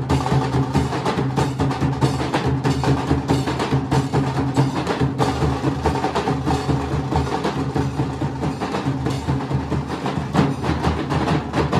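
A Nasik dhol troupe, many large barrel drums beaten with sticks, playing together in a fast, dense, steady rhythm.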